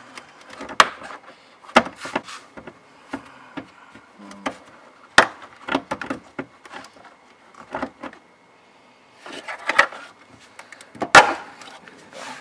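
Plastic tail light housing being worked loose and pulled out of the car's rear body panel: a string of sharp clicks and knocks at irregular intervals, the loudest near the end.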